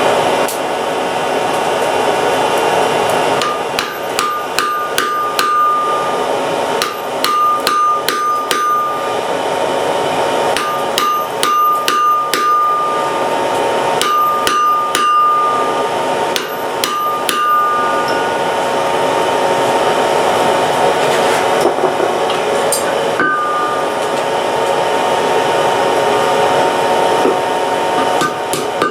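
Blacksmith's hammer striking iron on an anvil in quick bursts of several blows, the anvil ringing after many of them, for about the first two-thirds. After that only a few single knocks are heard. A steady whir runs underneath throughout.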